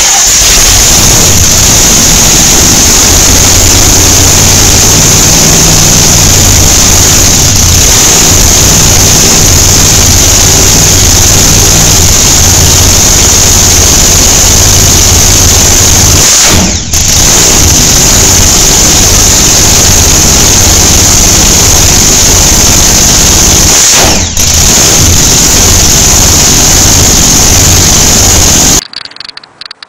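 Supercharged V8 engine of a custom chopper motorcycle running very loud and being revved, so loud the recording is overloaded. The sound dips briefly twice and cuts off just before the end.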